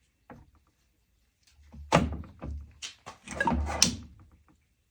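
A series of knocks and thunks from hard objects being handled. The loudest clunk comes about two seconds in, and more follow around three and four seconds.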